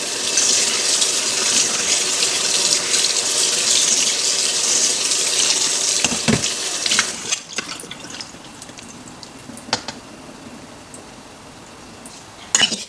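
Kitchen tap running as oysters are rinsed under it in the sink. The water stops about seven seconds in, leaving quieter handling with a few small clicks and knocks.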